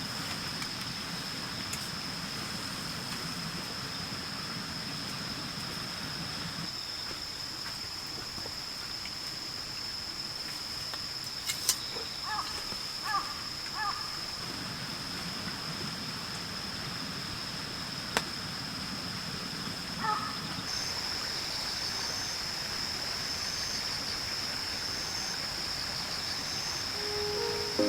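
Outdoor ambience of insects and birds: a steady high-pitched insect buzz, a few short bird calls about halfway through, and a faster pulsing insect chirp joining about two-thirds of the way in.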